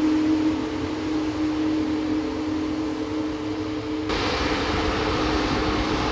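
Jet airliner's engines running at low power as it taxis: a steady hum with a constant low tone. About four seconds in, the sound changes abruptly to a wider, slightly louder engine rush.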